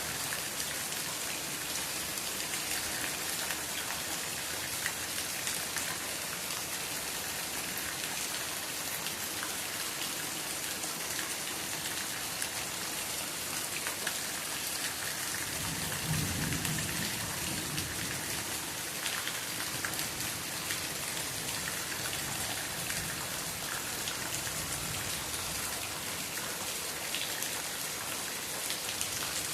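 Steady rain falling, with scattered louder drops ticking through the hiss. A brief low rumble comes a little over halfway through.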